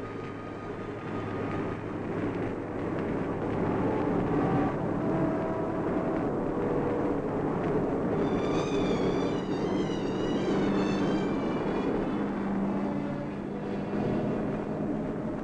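Engine of a truck loaded with about eight tonnes of timber, running steadily as it drives a narrow winding mountain road. About eight seconds in, a wavering high-pitched tone sounds over it for around three seconds.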